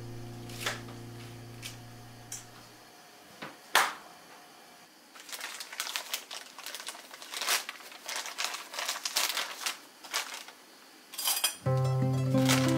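Plastic wrapping around a block of sake lees crinkling as it is handled, after a few scattered clicks and one sharper knock. Background music fades out at the start and comes back near the end.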